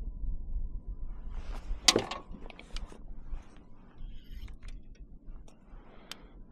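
Clicks, knocks and rustling of gear being handled on a fishing kayak, with one sharp knock, the loudest sound, about two seconds in, over a low rumble of wind on the microphone.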